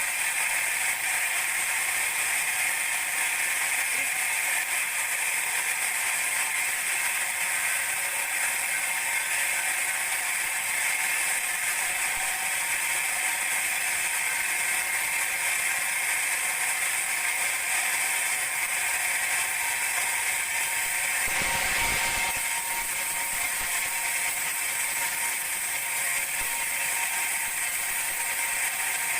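Band sawmill running steadily, its blade sawing through a teak log, with a mechanical rattle and a steady high whine. There is a brief low thump about 22 seconds in.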